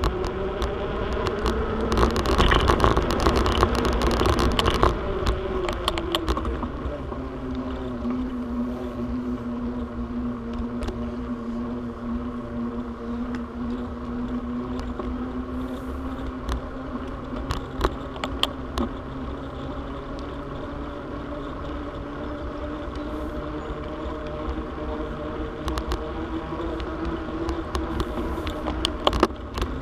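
Bicycle rolling fast on a paved trail: a steady humming whine that climbs in pitch and grows louder over the first few seconds, then drops back and holds at a steady pitch. Under it runs a wind rumble on the microphone, with scattered small clicks.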